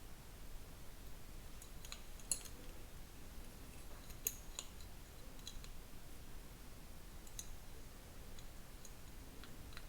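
Small plastic model kit parts being handled and pressed together, giving light scattered clicks with two sharper snaps about two and four seconds in.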